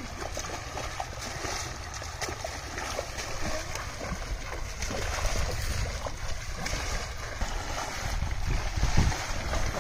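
Water splashing and sloshing as people wade through a shallow pond and drag a net through it, with a low rumble throughout.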